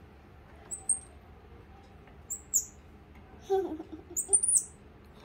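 Baby squirrel monkey giving three short, very high-pitched chirps, spaced about a second and a half apart, the later ones sliding down in pitch.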